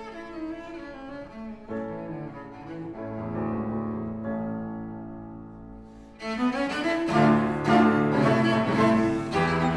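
Cello and grand piano playing a fast classical sonata movement. Softer held cello notes give way, about six seconds in, to a sudden louder, busier passage that opens with a rising run.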